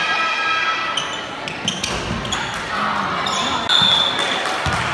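A basketball bouncing on a hardwood gym floor, several sharp thuds, amid spectators' voices.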